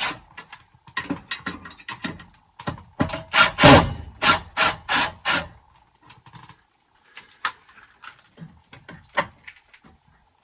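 Handling noises: a quick run of scrapes, rubs and knocks for about six seconds, then a few scattered lighter clicks and taps.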